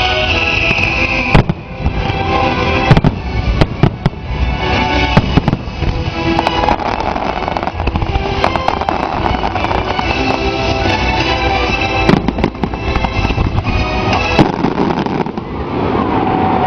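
Fireworks exploding in a series of sharp bangs, several close together in the first five seconds and more around twelve and fourteen seconds in, over loud show music played through outdoor speakers.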